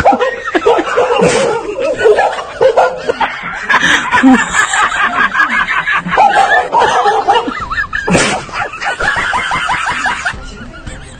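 Laughing in fast, repeated bursts, loud throughout, easing off near the end.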